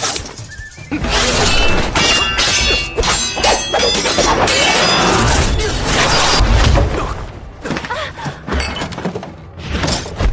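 Martial-arts film fight-scene effects: a rapid run of ringing metallic clangs, then heavy thuds and shattering crashes, over a music score.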